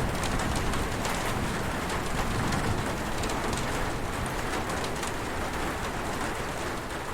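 Heavy rain falling in a steady hiss, with scattered sharp drop ticks, easing slightly near the end.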